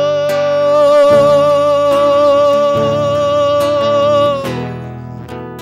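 Male singer holding one long sung note over a plucked acoustic guitar; about four and a half seconds in the note falls away and the guitar plays on alone, quieter.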